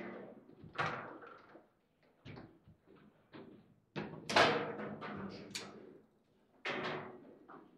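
Foosball table in play: the ball and rods knock sharply and irregularly against the men, walls and bumpers, each knock ringing briefly, the loudest one about four and a half seconds in.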